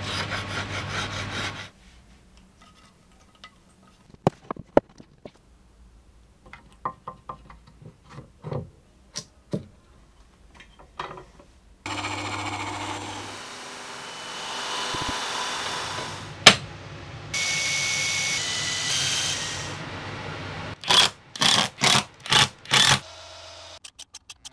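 Woodworking shop sounds in a sequence: a tool runs briefly, then a scatter of light knocks and taps, then a power tool runs steadily for several seconds with one sharp knock partway through. It ends with five short bursts in quick succession.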